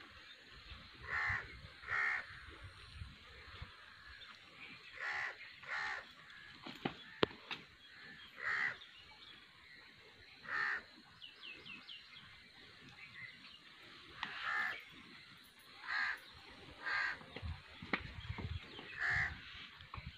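A crow cawing repeatedly: about ten short, harsh caws, singly or in pairs, spaced a second to a few seconds apart.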